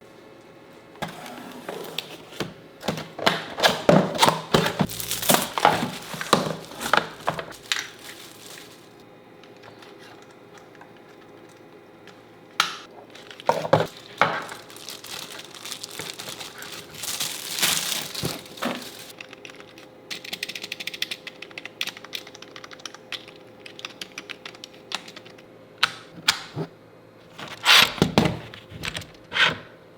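Packaging being handled and opened: plastic crinkling and tearing, with thunks and clicks from the box and its contents, in irregular bursts with quieter pauses between them.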